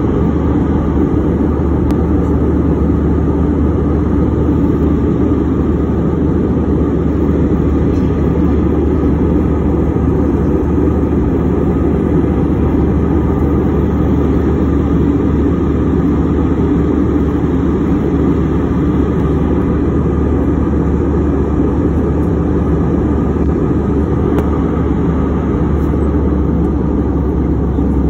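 Steady, deep cabin noise of a jet airliner in cruise flight: the even rush of the engines and air streaming past the fuselage, with no change in level.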